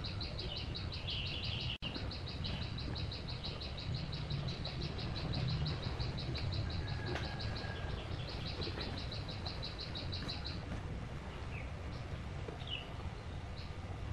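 A rapid, high-pitched chirping trill, many even chirps a second, breaks off briefly about eight seconds in and stops about ten and a half seconds in. A steady low rumble runs underneath.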